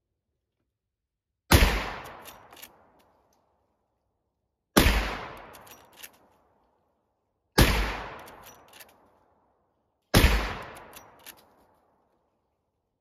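Four shots from a Henry Big Boy .44 Magnum lever-action rifle, roughly three seconds apart, each followed by the clicks of the lever being worked to chamber the next round. Every cartridge fires, with no misfire or light primer strike.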